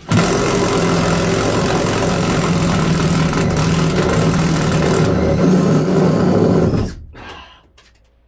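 Makita cordless impact driver hammering a hex-shank drill bit into a window-frame bolt to drill its head off. It runs continuously for about seven seconds, then stops.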